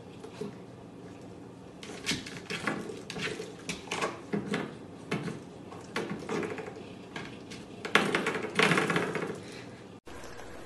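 A spring doorstop being flicked by a puppy's paw, twanging in a run of quick metallic boings that start about two seconds in, come thickest and loudest near the end, then stop abruptly.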